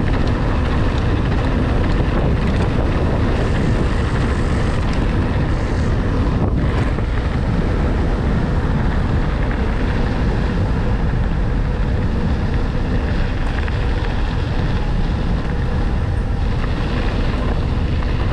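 Wind buffeting the camera microphone, mixed with tyre rumble and frame rattle from a mountain bike riding over a cobblestone road and then a dirt road. The noise is loud and steady throughout, heavy in the low end.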